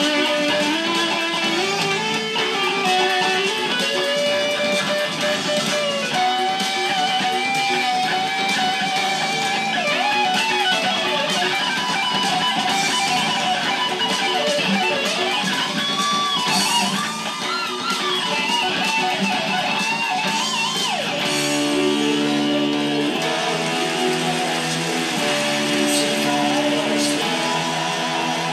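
Electric guitar on a Stratocaster-style instrument playing a busy melodic lead line with string bends, over a rock band backing. About 21 seconds in, it switches to tight, choppy rhythm chords.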